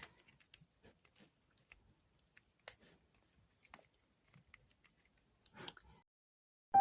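Faint, scattered plastic clicks of a freshly reassembled Rubik's cube being handled and turned, with a sharper click about two and a half seconds in and a short rustle near the end.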